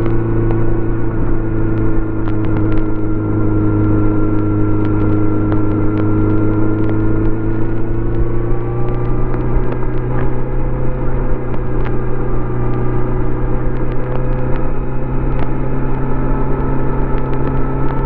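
Stock 2018 Kawasaki Z900RS inline-four engine and exhaust running at a steady pace under way, its pitch holding nearly even with a slight rise in the second half. Scattered short clicks are recording glitches from the microphone.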